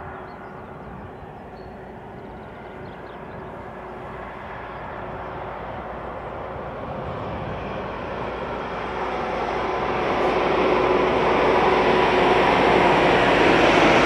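A DB class 218 diesel-hydraulic locomotive hauling a SyltShuttle car train approaches under power. Its engine note and train noise grow steadily louder as it draws near, and are loudest near the end as the locomotive passes.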